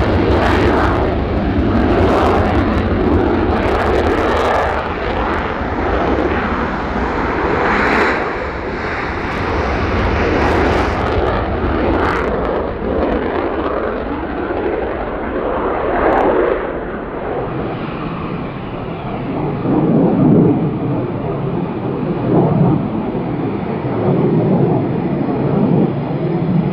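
Eurofighter Typhoon's twin EJ200 turbofans running at takeoff power with afterburner, a loud jet noise with sharp crackles through the takeoff run. About two-thirds of the way through, the sound turns duller and lower.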